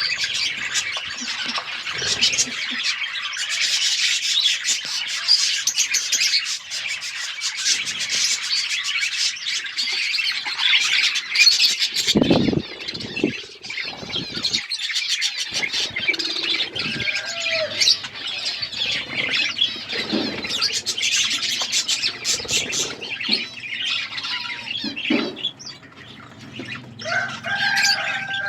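A flock of budgerigars chattering and warbling, a dense continuous chorus for the first twelve seconds that then thins out. A few low flutters, like wings flapping, come around the middle.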